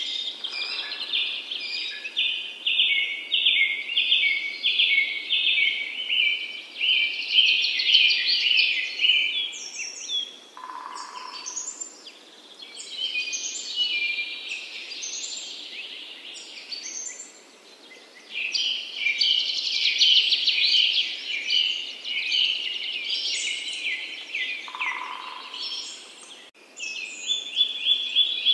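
Birds chirping and singing in a dense chorus of rapid, repeated high notes, with a lower whistled call twice, about a third of the way in and again near the end.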